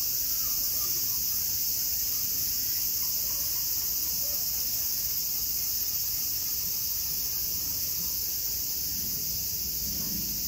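Steady high-pitched drone of a summer cicada chorus.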